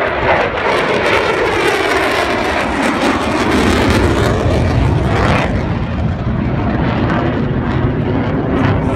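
Several F-16 fighter jets roaring as they fly past in formation, with a sweeping whoosh as they go by. The high hiss drops away about five seconds in, leaving a lower rumble.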